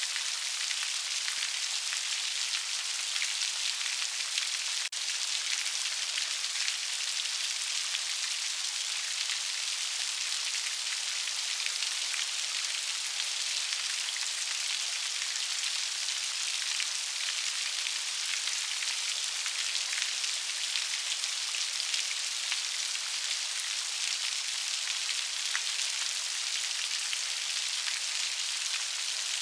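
Steady rain falling, a dense even patter of many small raindrops.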